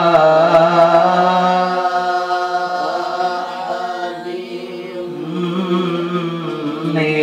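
A man chanting Quran recitation into a microphone in a slow, drawn-out melody, holding long notes that bend gently in pitch; it turns quieter about four seconds in.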